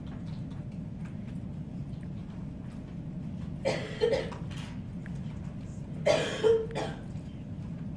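A person coughing twice, about two seconds apart, each time a short double cough, over a steady low hum.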